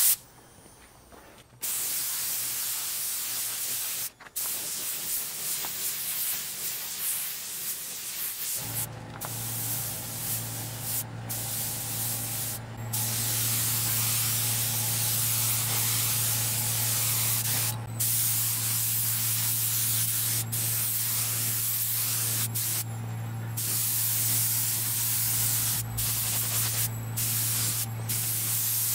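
Gravity-feed spray gun spraying water-based leather paint, hissing in long bursts broken by short gaps as the trigger is released and pulled again. From about two seconds in, and a low steady motor hum joins about nine seconds in.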